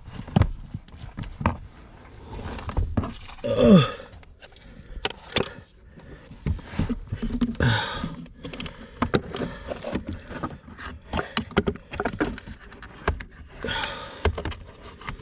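Handling noises from fitting the new blower motor up into its housing under a 2015 Dodge Charger's dashboard: irregular clicks, knocks and scrapes of plastic parts and tools being worked into place. About four seconds in there is a short falling groan-like sound, the loudest moment.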